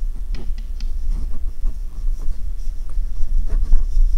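Handling noise from hands on the shock-mounted base of a Godox VD-Mic compact shotgun microphone, picked up by the mic itself while its shock absorber is being tested: a loud low rumble with scattered clicks and knocks.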